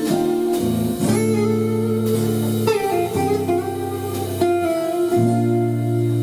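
Acoustic guitar played live, ringing chords that change every second or two.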